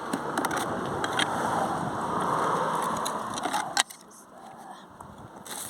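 Metal magnet-fishing finds clinking and rattling as they are handled, over a rushing noise that cuts off suddenly almost four seconds in; after that it is quieter, with a few more clinks near the end.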